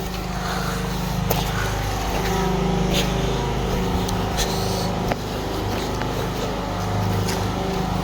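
Steady low engine hum, with a few sharp clicks or knocks over it.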